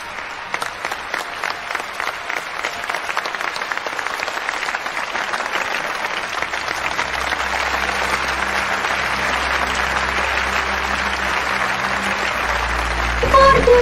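A large audience applauding, the clapping swelling steadily louder. About halfway in, low steady tones come in underneath.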